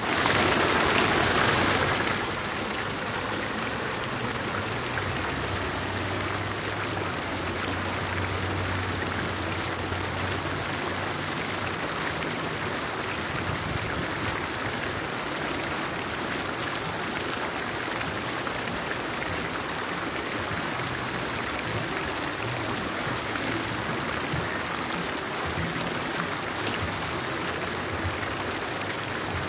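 Fountain jets splashing steadily into the basin, a continuous rush of falling water, louder for the first two seconds.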